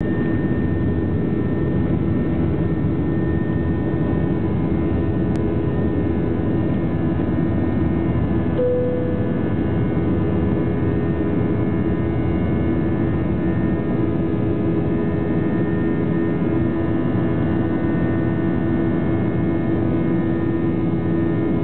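Jet airliner's turbofan engines at takeoff thrust, heard from inside the cabin: a loud, steady rush of noise with a constant drone under it. A brief tone sounds about nine seconds in.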